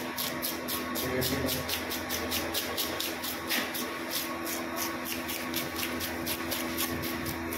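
A fish scaler rasping against the scales of a black pomfret on a plastic cutting board, in quick, even scraping strokes about five a second.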